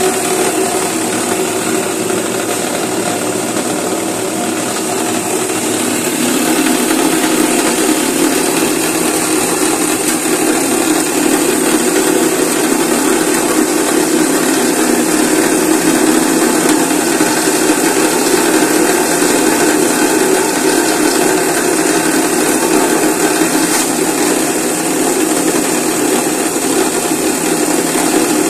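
Palm sugar grinder machine running steadily, a dense mechanical whir with a rattling texture that gets a little louder about six seconds in.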